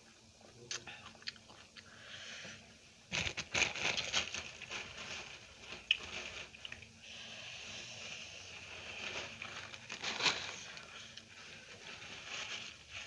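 Close-miked eating sounds: a person chewing and crunching food with wet mouth clicks. The loudest bursts of crunchy, clicking bites come about three seconds in and again about ten seconds in.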